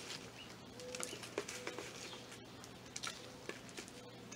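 Hands mixing potting soil with LECA clay pebbles in a plastic bowl: faint rustling with small irregular clicks as the pebbles knock together.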